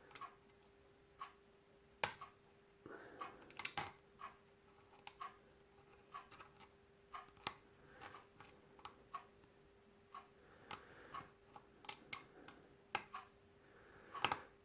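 Lock pick and tension wrench working the pins of a Yale rim cylinder: scattered light clicks and ticks at irregular intervals as pins are lifted and set. A faint steady hum runs underneath for most of it.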